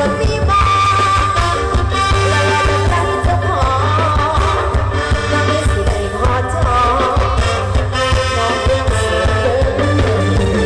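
Live mor lam band playing through a loud PA, a lead singer singing over a steady driving beat and bass.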